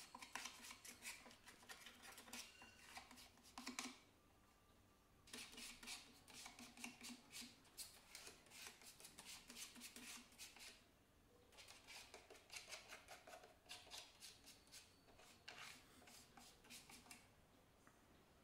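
A flat spreader scraping Fevicol wood glue across a plywood shelf: faint, quick scraping strokes in three spells, with short pauses about four and eleven seconds in.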